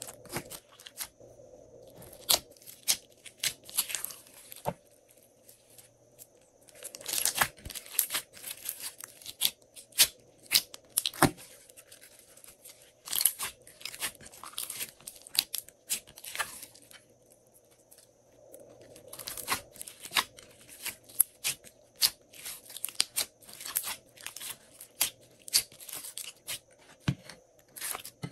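Glossy slime squeezed and kneaded by hand: irregular sticky clicks, crackles and pops as it is pressed and pulled, with two short quieter pauses between handlings.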